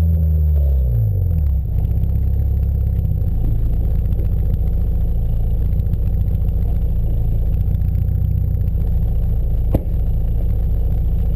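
Sport-compact car engine heard through a body-mounted camera: the revs fall off over the first second or two, then it idles steadily with a low rumble. One sharp knock sounds near the end.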